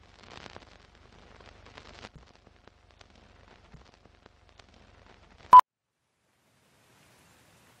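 Old-film countdown leader sound effect: faint scratchy crackle and scattered clicks, then a single short, loud, high beep about five and a half seconds in.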